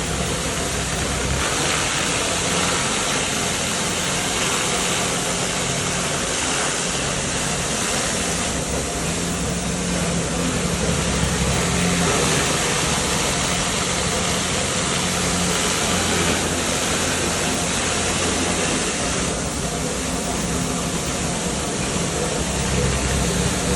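Pressure washer running steadily, a constant machine hum under the hiss of its water jet on a concrete floor.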